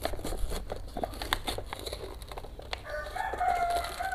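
Crinkling and rustling as the lids of instant-noodle cups are peeled back and the seasoning sachets handled. About three seconds in, a rooster crows: one long, steady-pitched call that is louder than the packaging.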